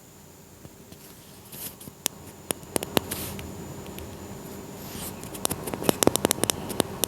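Handling noise picked up by a wireless microphone during a mic test: scattered sharp clicks and rustles, becoming rapid and dense from about five seconds in.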